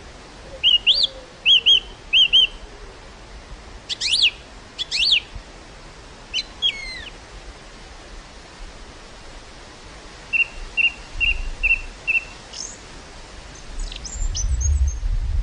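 Songbirds chirping and calling over a steady outdoor hiss of breeze: short chirps in twos and threes, a couple of louder sweeping calls about four seconds in, and a run of five quick, evenly spaced chirps about ten seconds in. Low wind rumble on the microphone builds near the end.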